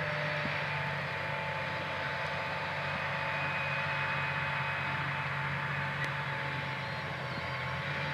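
Large John Deere 8345RT track tractor's diesel engine running steadily under load while pulling a corn planter, with a constant hum and a thin steady whine above it.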